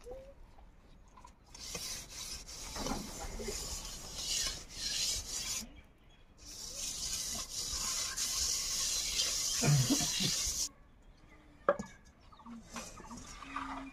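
A hand rubbing wet mud paste over the underside of a metal wok, a rasping scrape in two long stretches of several seconds each, followed by a single sharp knock.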